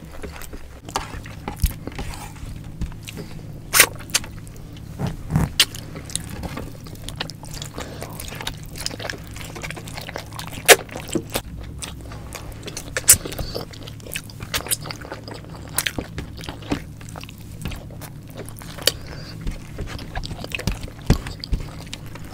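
Close-miked chewing of pork adobo and rice by two people eating with their hands, with sharp, wet mouth clicks scattered irregularly throughout.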